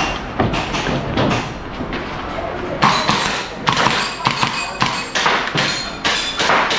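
Airsoft rifle firing a quick, irregular string of single shots, sharp cracks with brief metallic ringing from BBs striking targets, coming thickest from about three seconds in.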